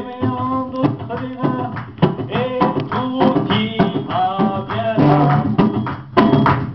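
A man singing a slow song, holding long notes, accompanied by a strummed nylon-string classical guitar.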